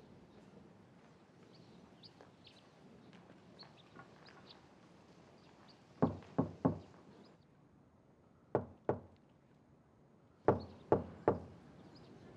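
Knuckles knocking on a wooden door in three groups: three knocks, then two, then three more, a couple of seconds apart.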